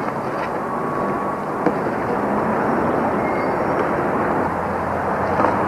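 Steady city street traffic noise: a continuous rush of passing vehicles.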